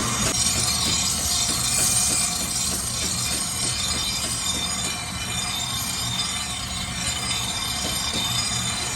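Workshop machinery running steadily: a low hum under a bright, even hiss, with faint regular pulses throughout.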